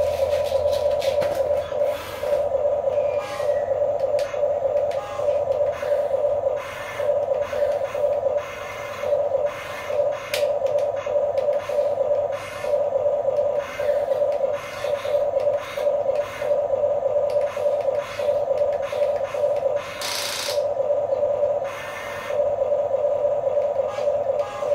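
Electric gear motors of a Huina 1550 remote-control excavator whining in runs of a second or two with short breaks as the boom and bucket move, with scattered scrapes and clicks from the bucket in sand.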